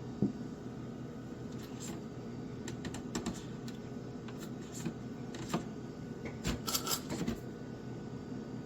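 Scattered light clicks and knocks of hard objects being handled, a few about three seconds in and a denser run near the end, over a steady low hum.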